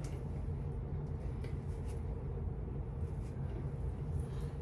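Steady low hum of room background noise, with a few faint soft ticks.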